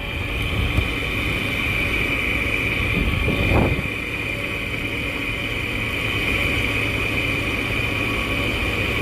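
Arctic King window air conditioner running with a loud buzz from the compressor: a steady high-pitched tone over a low rumble, with a brief rising swell about three and a half seconds in.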